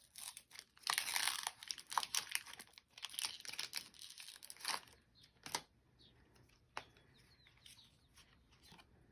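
Foil Pokémon booster pack wrapper crinkling and tearing for about five seconds, then fainter handling with a few sharp clicks.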